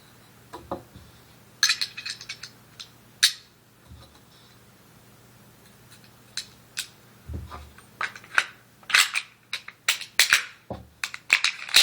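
Clicks and clacks of Beretta 92FS pistol parts being fitted together by hand during reassembly, with a short flurry of clicks about two seconds in and a quicker run of clacks in the last four seconds.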